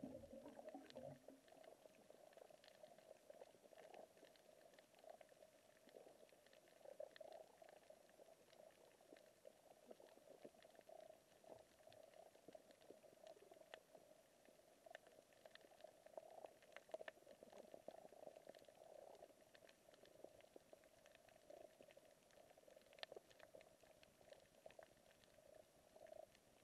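Faint underwater coral-reef ambience: a steady low hum with many scattered sharp clicks and crackles.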